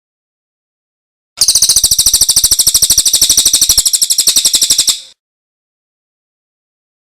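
Small songbird giving one fast, high-pitched trill of evenly spaced chips, about fourteen a second, starting about a second and a half in and cutting off after about three and a half seconds.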